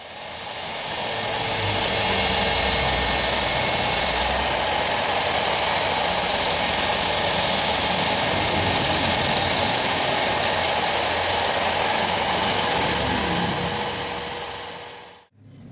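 Steady running noise of a motor-driven machine, fading in at the start and out near the end.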